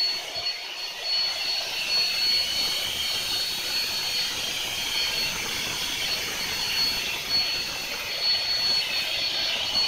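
Electric blower running steadily, pushing air through a hose into a large plastic inflatable: a continuous rush of air with a thin, high steady whine.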